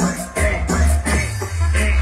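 Loud dance music played over a sonido sound system, with a heavy pulsing bass beat under a pitched melody.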